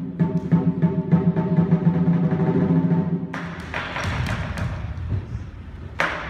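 Lion dance percussion: a large drum beaten in quick strikes with gong and cymbals ringing over it. About three seconds in, a long cymbal crash takes over and the playing thins, then a fresh strike comes near the end.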